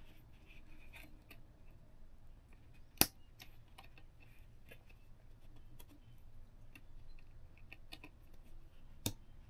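Faint handling of electrical wires and a Wago lever connector: light scratches and small clicks, with two sharp clicks about three seconds in and near the end, as the connector's lever snaps shut to clamp the stripped hot lead.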